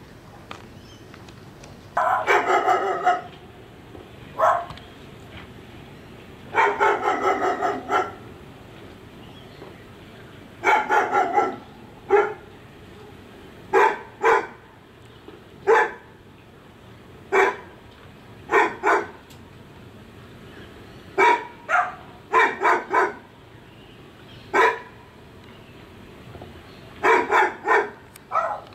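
A dog barking in bursts: quick runs of several barks in a row between single barks and short pauses.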